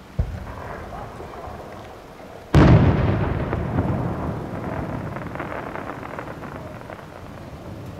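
Fireworks going off: a dull thump just after the start, then a much louder boom about two and a half seconds in, followed by several seconds of crackling that slowly dies away.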